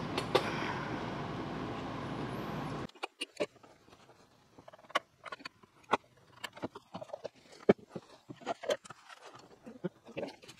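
A steady background hiss with a couple of sharp clicks, which cuts off abruptly about three seconds in. Then come scattered sharp metal clicks and knocks, irregular and fairly quiet, as a brake master cylinder is set onto the truck and its brake-line fittings are worked with a wrench.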